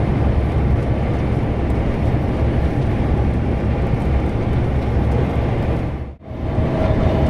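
Interior cab noise of an Iveco EuroStar truck driving over a rough road: a steady low engine drone and road rumble. The sound dips out briefly about six seconds in, then comes back.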